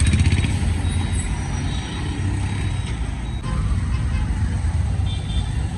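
Busy street traffic: buses and auto-rickshaws running, with a steady heavy low rumble.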